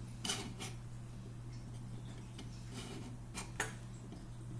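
A metal scribe scratching marks into aluminum bar stock: several brief scrapes and ticks, over a steady low hum.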